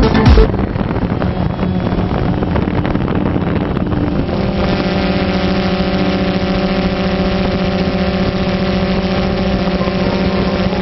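Quadcopter drone's motors and propellers as heard by its onboard camera: a rough whirring with wind on the microphone, settling about four seconds in into a steady multi-tone hum.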